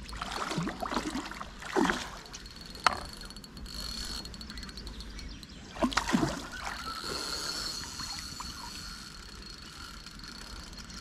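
Short bursts of water splashing and sloshing from a hooked fish thrashing at the surface, about half a second in, near two seconds and around six seconds, with a sharp click near three seconds.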